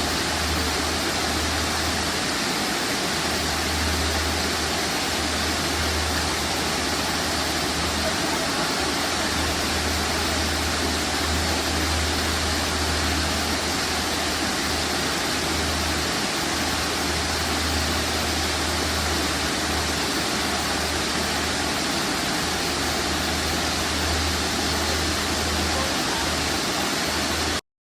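Waterfall, a steady rush of falling water, with a low rumble that comes and goes beneath it; it cuts off abruptly near the end.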